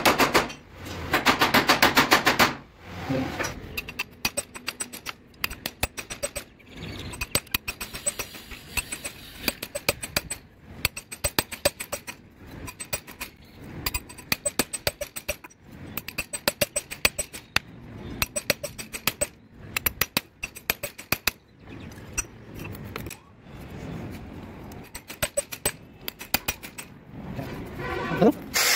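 A hammer beating a steel rebar rod laid on an old hammer head used as an anvil: fast flurries of sharp metal-on-metal blows with short pauses between them. The rod's end is being flattened to forge a homemade long drill bit.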